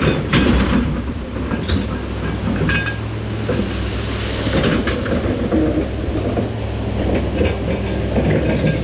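Excavator working: a steady low diesel engine hum with scattered metallic clanks and knocks.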